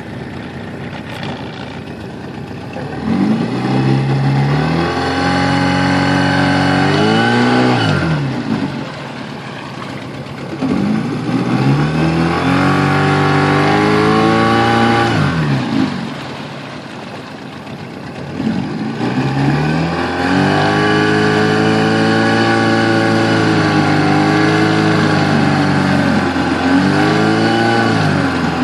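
Yamaha 8A engine revved up and let back down three times, each rise held for several seconds, with a squeak (Quietschgeräusch) in its running noise.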